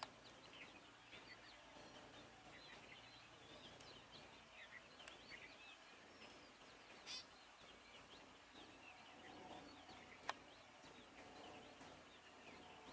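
Near silence with many faint short bird chirps and a faint high tone that pulses about once a second. There is a sharp click about ten seconds in.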